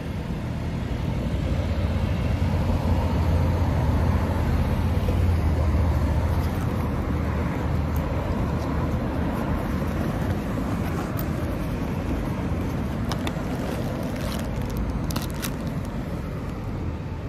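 Low rumble of road traffic, swelling over the first few seconds and slowly easing. Near the end, a few sharp crinkles of a plastic zip bag being handled.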